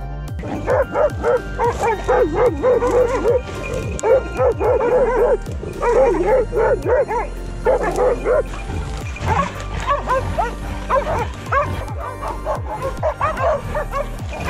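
Hunting dog barking and yelping rapidly and high-pitched, in quick bursts with short pauses between them.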